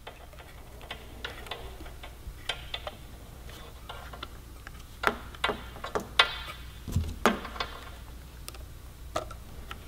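Scattered light clicks and taps, irregular and a little busier from about halfway through, as hands fit a motorcycle turn signal's rubber stem, wiring and lock into a metal license-plate bracket.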